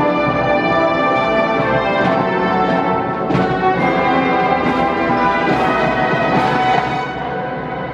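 High school wind band playing full brass chords, punctuated by percussion strikes about once a second, then dropping to a softer passage near the end.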